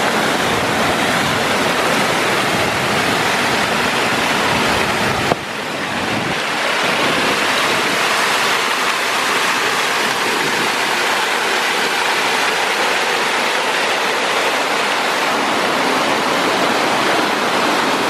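Water pouring over a low stone wall and rushing across a rock slab: a steady, loud rush of white water, with a brief dip about five seconds in.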